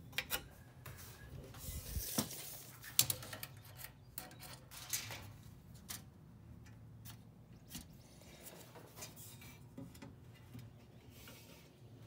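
Scattered light clicks, taps and rubbing as a pencil and tape measure are handled against an aluminium frame, with the sharpest taps about two, three and five seconds in.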